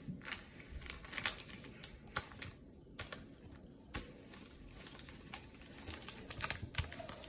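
Irregular light clicks and crackles of snack packaging being handled.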